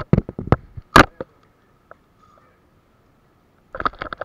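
A series of sharp clicks and knocks, several quick ones at the start, the loudest about a second in, then a quick cluster near the end.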